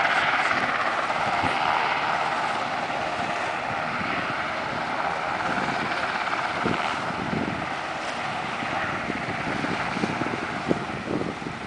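A steady mechanical engine drone with a few held pitches, slowly fading, and a single sharp tap near the end.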